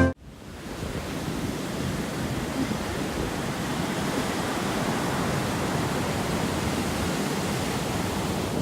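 Steady rushing of ocean surf, fading in over about a second and then holding even.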